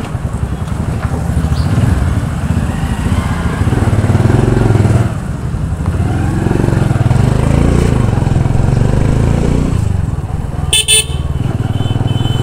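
A motorcycle engine running at low road speed, heard from the rider's seat, with a short horn honk about eleven seconds in.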